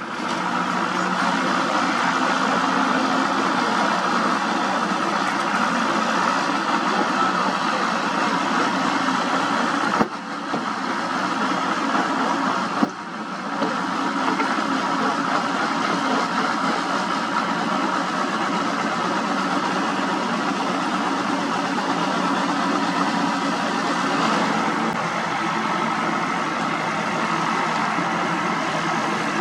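Heavy diesel road-paving machinery running steadily, a continuous engine drone broken only by two brief dips about ten and thirteen seconds in.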